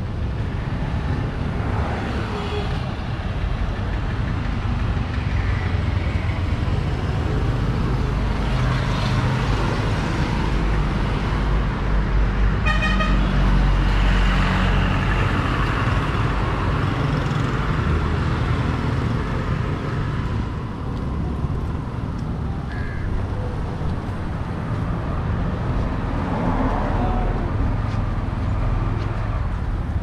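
Street traffic: motor vehicles running past with a steady low rumble that swells through the middle, and a short horn toot about halfway through.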